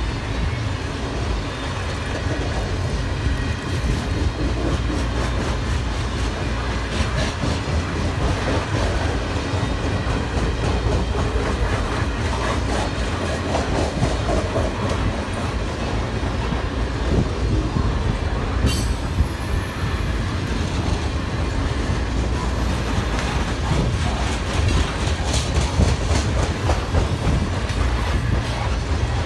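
Freight train of covered grain hopper cars rolling past: a steady heavy rumble of steel wheels with rhythmic clacking over the rail joints, and a few brief high wheel squeals.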